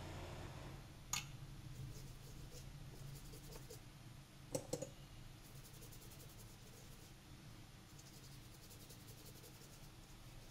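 Faint small clicks of hand tools and the phone motherboard being handled at a repair bench: one sharp click about a second in and two or three more around four and a half seconds, over quiet room tone with a low hum that fades early on.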